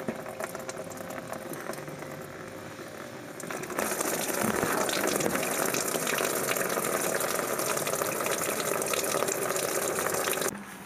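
Green engine coolant draining out of a partly removed water pump and splashing into a drain pan. It starts as a thinner trickle, then becomes a heavy, louder gush about four seconds in, which cuts off suddenly just before the end.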